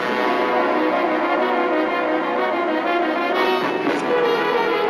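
Brass-led orchestral film-trailer music playing sustained chords, shifting to a new chord about three and a half seconds in.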